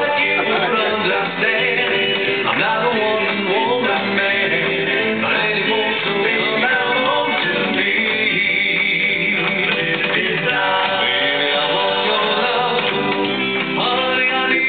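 Doo-wop song with sung vocals over guitar and band backing.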